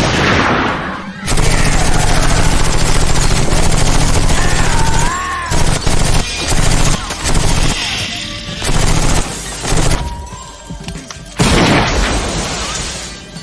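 Rapid automatic gunfire: a long unbroken volley starting about a second in, then several shorter bursts, with booming hits mixed in.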